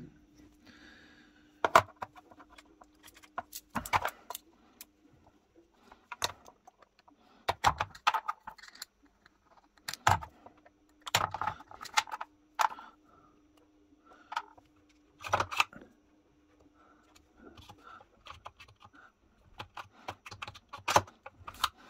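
Irregular metallic clicks and clinks of small steel parts and hand tools being handled: the lock of an antique percussion pocket pistol worked with locking pliers. The clicks come singly and in short clusters, over a faint steady hum.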